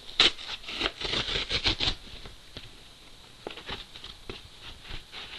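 Cardboard shipping box being opened and unpacked by hand: a quick flurry of scraping, tearing and rustling for about the first two seconds, then lighter scrapes and taps.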